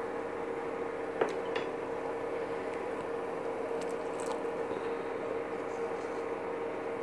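Soup simmering and being stirred with a wooden spatula in a pan on an induction cooktop, over the cooktop's steady hum. There is a light knock about a second in.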